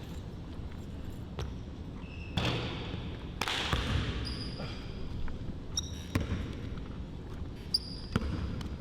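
Basketball bouncing on a gym floor during a one-on-one game, a series of sharp knocks, with sneakers squeaking in short high chirps and a short rush of noise about three seconds in.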